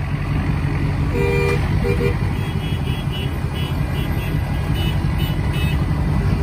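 Pickup truck's engine and exhaust running with a steady low rumble as it creeps along in traffic. A car horn sounds briefly about a second in, and a quick high beeping repeats through the middle.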